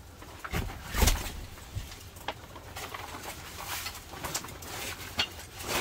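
Camping gear being handled and shifted: irregular rustling and knocks, with a heavier thump about a second in.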